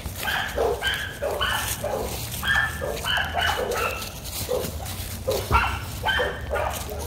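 American Pit Bull Terrier puppy barking in a rapid run of short, high-pitched yips, about two to three a second, with a couple of brief pauses.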